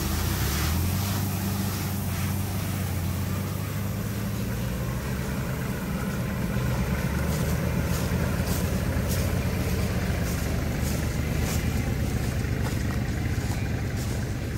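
Kubota KL340 tractor's diesel engine running steadily while the tractor moves off and drives along towing a rice-husk spreader. Light clicks and rattles come in from about six seconds in.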